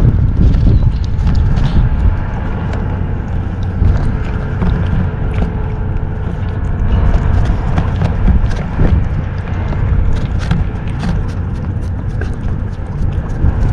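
Kitten chewing and licking cat food off a paper plate close to the microphone: quick, irregular wet clicks and smacks, more frequent in the second half, over a steady low rumble.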